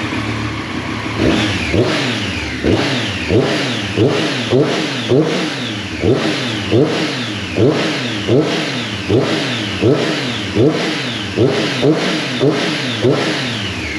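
Triumph Street Triple 765 RS three-cylinder engine idling, then revved in quick throttle blips, well over a dozen, each rising and falling in pitch. The rattle from the loose valve-cover flap bolts is gone now that the bolts have been retightened: the problem is resolved.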